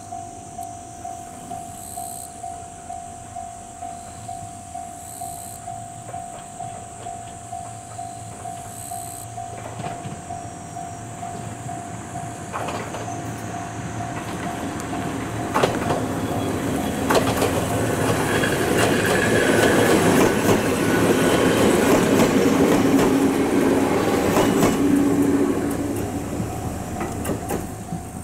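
Ohmi Railway 800-series two-car electric train (set 808F) approaching and passing close by, its wheels clacking, loudest for several seconds as it goes by and dropping away near the end. Under it a steady chime pulses about twice a second and stops near the end.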